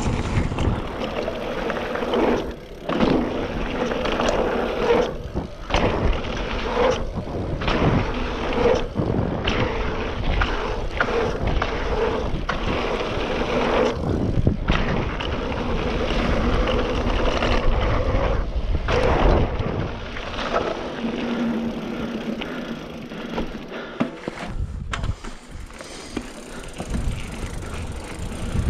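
2019 Trek Roscoe 8 mountain bike ridden fast down a dirt trail: its wide 27.5-plus tyres roll and crunch over the dirt, and the bike knocks and rattles over bumps.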